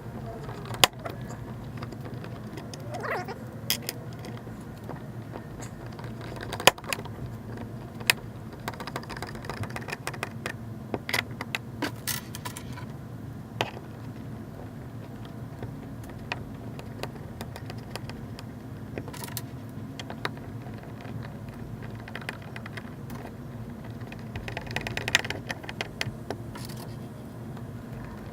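Small metal hardware and tools clinking and clicking now and then as seat parts are handled and fitted, over a steady low hum.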